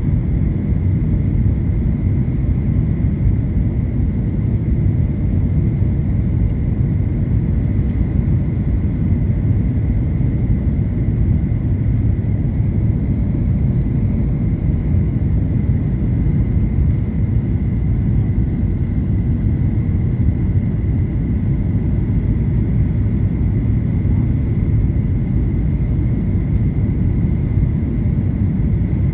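Passenger airliner in flight during the landing approach: a steady low rumble of engines and airflow, with a faint steady whine above it.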